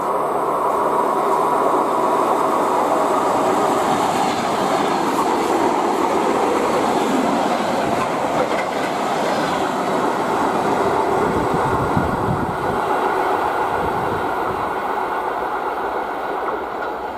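ER2 electric multiple unit passing at speed, a continuous loud rumble of wheels on rails with clickety-clack over the rail joints, easing off near the end.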